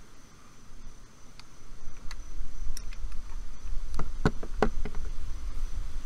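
A few sharp clicks and knocks from a metal flaring tool and copper tube being handled and set down on a wooden board, the loudest three coming in quick succession about four seconds in. Under them runs a steady high-pitched tone, and a low rumble builds from about two seconds in.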